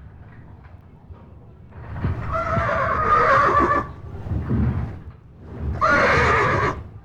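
A horse in a stable whinnies twice: a long call about two seconds in and a shorter one near the end. Low knocks can be heard beneath the calls.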